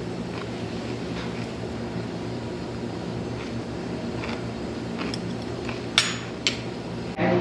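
Restaurant room tone: a steady low machine hum with faint scattered clicks of tableware, and two sharp clinks about six seconds in.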